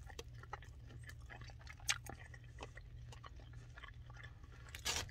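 A man biting and chewing a mouthful of wet, sauce-covered barbecued pork rib, with many small wet clicks and smacks and a louder one about two seconds in. A steady low hum runs underneath, and a louder noisy burst comes near the end.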